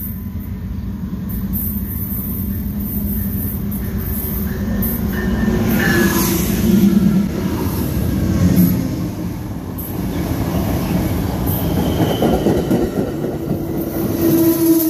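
Amtrak passenger train rolling by: a continuous rumble of wheels on rail that swells to a peak around the middle, with some higher wheel tones over it and a steady hum coming in near the end.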